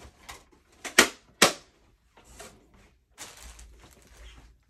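Handling noise as a large die-cutting and embossing machine is fetched: two sharp knocks about half a second apart, then a longer rustling, scraping shuffle.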